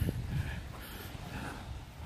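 Faint footsteps and rustling of someone walking through grass, over a low rumble of wind or handling noise on the microphone.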